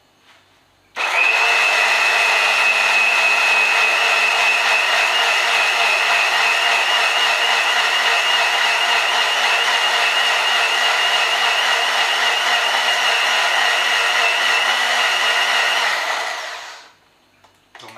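Electric mixer grinder blending boiled spinach into a purée: the motor is switched on about a second in, runs steadily with a high whine, and winds down near the end.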